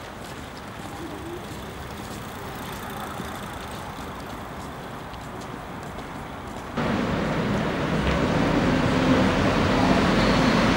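City street ambience with distant traffic. About two-thirds of the way through it cuts suddenly to louder traffic noise with a steady low hum.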